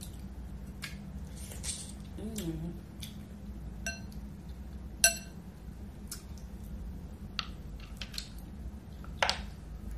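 Fingers picking through shrimp and shellfish in a glass bowl of sauce: soft wet squishes and scattered light clicks. A sharp, briefly ringing clink against the glass bowl comes about five seconds in, with a smaller one just before it.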